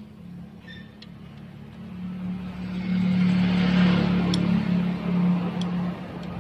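A motor vehicle's engine hum, steady in pitch, that grows louder about two seconds in and eases off near the end, with a few light clicks over it.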